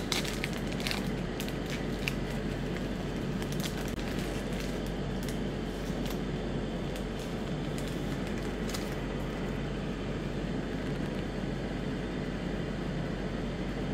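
Crinkling and crackling of a Magic: The Gathering booster pack's plastic wrapper being torn and peeled open. The crackles are scattered through about the first nine seconds, over a steady background hiss and low hum.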